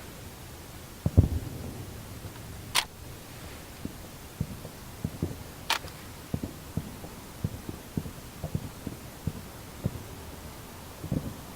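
Fireworks bursting: a string of irregular low booms, the loudest about a second in. Two short sharp high clicks are heard, about three seconds and about six seconds in.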